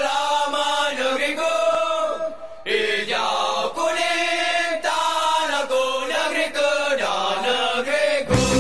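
Group of male voices singing a football supporters' chant in unison, phrase after phrase. Just before the end a rock band with electric guitar comes in.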